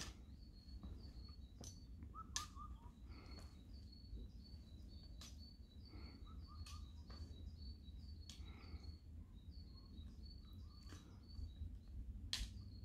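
A bird calling faintly and steadily in a rapid run of short, high, evenly spaced notes, with a few sharp clicks a second or two apart and a low rumble underneath.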